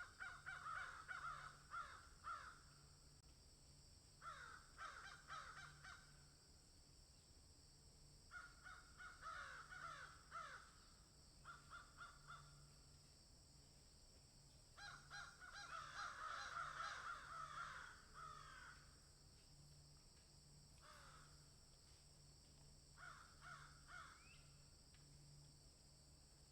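A bird giving harsh, chattering calls in bursts of one to three seconds, repeated every few seconds, the longest about two thirds of the way through.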